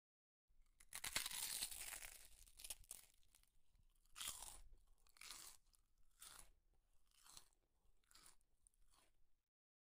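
Close-up eating sounds from hand-eating rice and curry: wet crunching and chewing mixed with the squish of rice being worked by hand on a steel plate. The sound is densest a second or two in, then comes in separate strokes about once a second.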